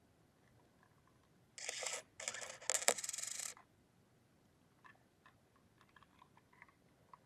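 Plastic case of a LiftMaster garage door remote being pressed back together. About two seconds of scraping and rubbing with a sharp click partway through, then a few faint ticks of handling.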